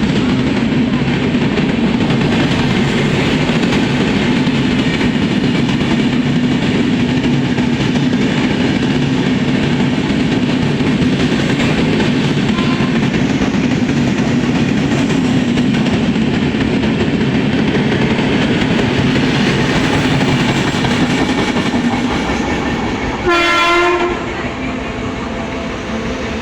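Train wheels running over the rails as a train passes close by, a loud steady rumble throughout. About 23 seconds in there is a short horn blast.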